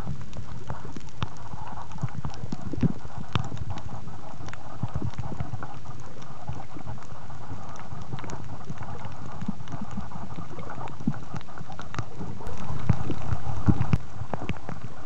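Underwater sound picked up by a compact camera's microphone sealed in a soft plastic waterproof pouch: a steady, muffled low rumble with scattered clicks and knocks. The sound grows louder for about a second and a half near the end.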